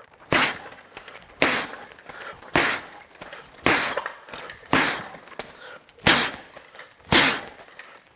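Boxing gloves striking a Ringside uppercut bag: seven hard punches, about one a second, evenly paced, a run of uppercuts going into hooks.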